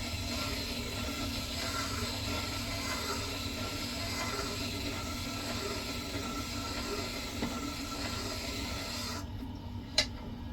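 Chisel being ground on the slow-turning wet stone of a Bucktools wet sharpener: a steady gritty hiss over the machine's motor hum. The grinding stops abruptly about nine seconds in, the hum carries on, and a single sharp click follows about a second later.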